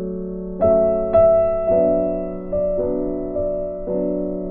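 Background music: gentle piano playing sustained chords, with new notes struck every half second or so.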